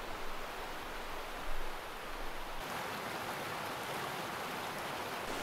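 Steady rush of a fast-flowing brook running high, its tone shifting a little about halfway through.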